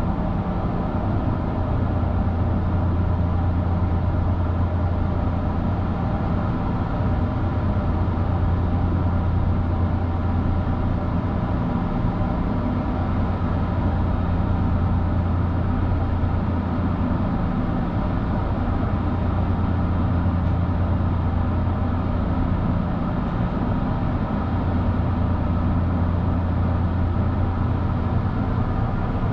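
Steady low hum inside the cabin of a JR Kyushu 883 series limited express train standing at the platform, its onboard equipment running.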